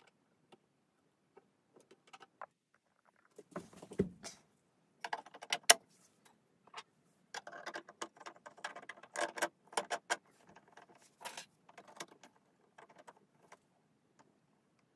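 Hand-assembly of 3D-printed plastic parts: scattered clicks, taps and rattles of plastic pieces being handled and fitted, with a dull knock about four seconds in, a sharp click just under six seconds in, and a stretch of busy rattling in the middle.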